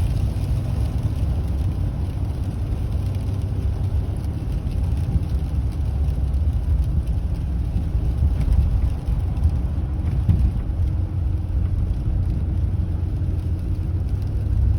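Steady low rumble of a car driving on a winter road, engine and tyre noise heard from inside the moving car.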